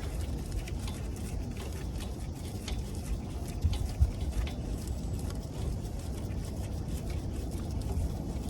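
Scattered light clicks and taps of hand work on a car's front brake caliper as it is unbolted and taken off, over a steady low rumble.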